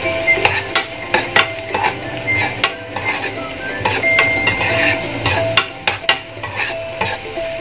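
Minced pork being stirred and scraped around a frying pan, the utensil clicking against the pan again and again, with a light sizzle from the pan, still hot after the heat was switched off.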